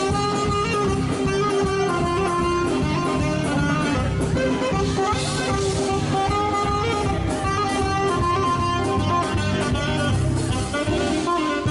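A band playing music at steady volume, with held notes over a full bass line.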